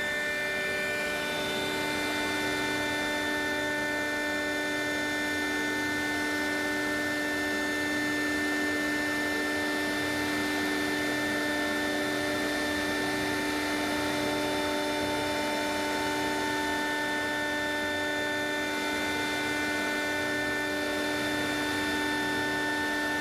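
CNC router spindle running steadily while milling a small Delrin plastic part: an even whine of several steady tones over a hiss, with a low throb pulsing about once a second.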